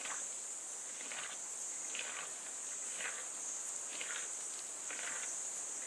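Outdoor tropical ambience: a steady, high-pitched insect drone, with faint soft sounds repeating about once a second.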